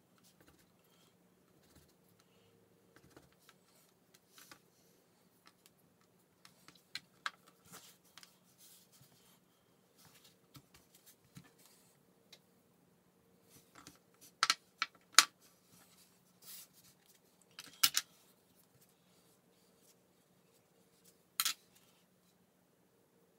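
Scattered light taps and clicks of plastic sugarcraft tools, a rolling pin and a board being handled and set down on a hard work mat, with a few sharper clacks in the second half, over a faint steady hum.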